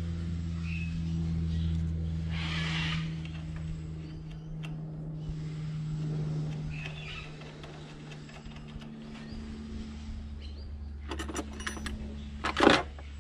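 Small metal throttle-linkage parts clicking and clinking as they are handled and fitted by hand, over a steady low background hum. A run of quick clicks near the end ends in one sharp metal clack, the loudest sound.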